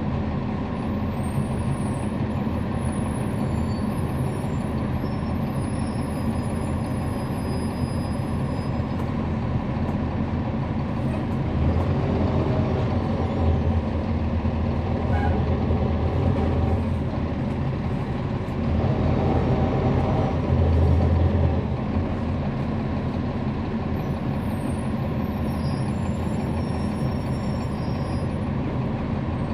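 Cummins ISL9 diesel engine of a NABI 40-SFW transit bus running, heard from inside the bus. It grows louder and deeper about twelve seconds in and again about twenty seconds in, then settles back to a steadier, quieter run.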